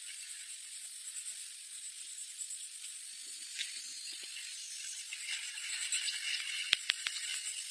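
Steady high hiss of outdoor ambience, with two sharp clicks in quick succession a little before the end.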